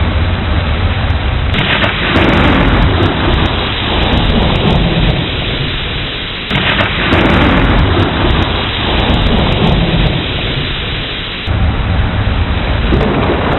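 Thunderstorm: heavy rain falling steadily while thunder breaks in sharply twice, about five seconds apart, each time dying away into a low rumble.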